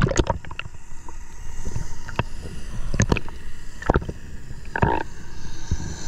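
Underwater audio from a diver's action camera: a low muffled rumble of water on the housing, broken by about half a dozen sharp knocks and clicks, with a short rasp about five seconds in.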